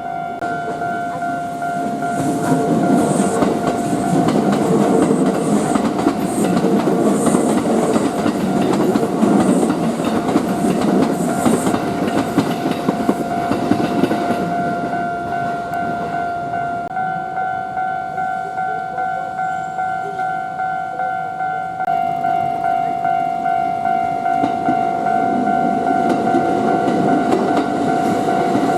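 Japanese level-crossing warning bell ringing in a steady rapid 'kan-kan' rhythm, about two strokes a second, while a Kintetsu electric train passes with a rumble and wheel clatter for roughly twelve seconds. The bell's pitch shifts partway through, and a second train's rumble builds near the end.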